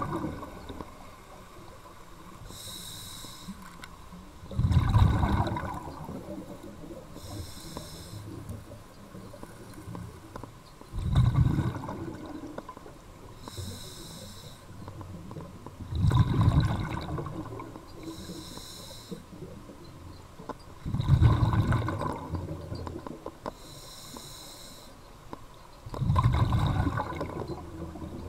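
Scuba diver breathing through a regulator underwater, about five breaths: a short hiss on each inhale, then a louder low burst of exhaled bubbles, roughly every five seconds.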